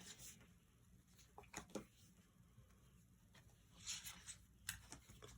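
Faint, brief rustles and scrapes of paper being handled, stickers and planner or sticker-book pages, a few scattered times over quiet room tone.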